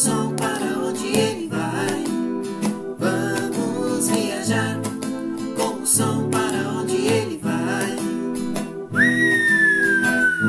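Nylon-string acoustic guitar strummed in a steady rhythm under a man's singing voice. About nine seconds in, a long, high, whistle-like tone begins and slides steadily down in pitch.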